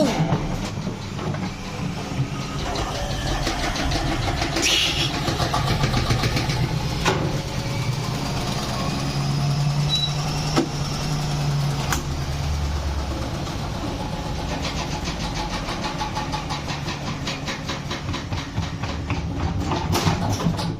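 Zanussi washing machine running its spin with the drum's shock absorbers removed: a steady low mechanical drone with a dense, rapid rattle and a few sharp knocks from the unbalanced, undamped drum.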